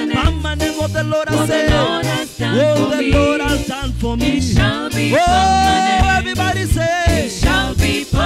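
Live gospel reggae song: a lead singer and backing singers over a band with a steady bass and drum beat, the voices holding one long note about five seconds in.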